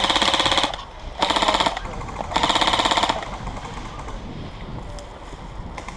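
Airsoft electric gun firing three short full-auto bursts, a fast even rattle, the last ending about three seconds in.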